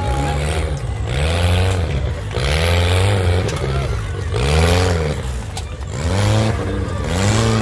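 Modified Suzuki Jimny off-road 4x4's engine revving up and dropping back again and again as it crawls over loose boulders.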